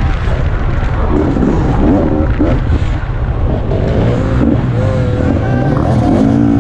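Enduro motorcycle engine heard from an onboard camera while racing on a dirt track, its pitch rising and falling as the throttle opens and closes, over heavy rumbling wind noise on the microphone.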